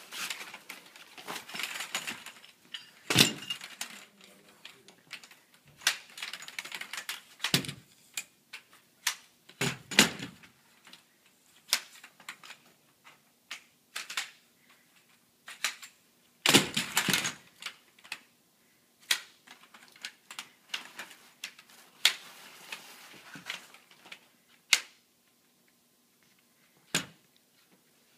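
Aluminium frame tubes of a Folbot Citibot folding kayak clattering and clicking against one another as they are pulled from the bag and laid down, with rustling of the fabric and bag. The clicks and knocks come irregularly, a few of them louder, around 3, 10 and 17 seconds in.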